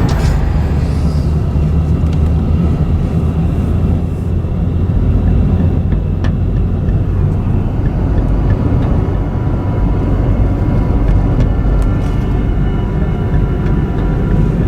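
A car driving steadily, its engine and tyres making a continuous low rumble.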